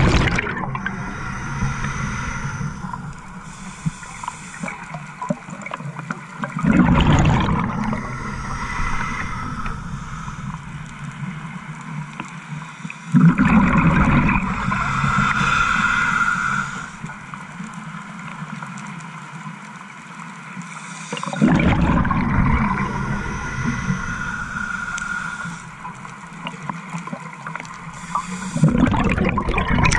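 Scuba diver breathing through a regulator underwater: bursts of exhaled bubbles gurgling past the camera about every seven to eight seconds, with a quieter hiss between them.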